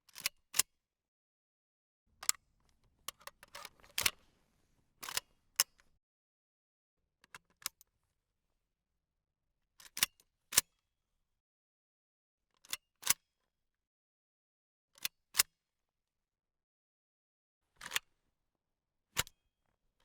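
Gun-handling foley: sharp metallic clicks, mostly in pairs about half a second apart, repeating every two to three seconds, with a busier stretch of rattling and clicking a few seconds in.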